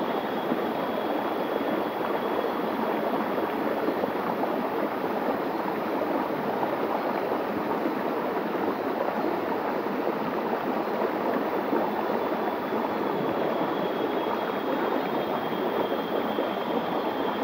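Small stream running over rock slabs and a little cascade: a steady, even rush of water. A faint thin high tone sits under it near the start and again near the end.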